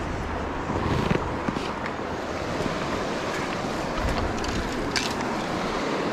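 Fast-flowing river rushing steadily over a shallow, stony bed, with wind buffeting the microphone. A few short crunches of footsteps on loose river stones.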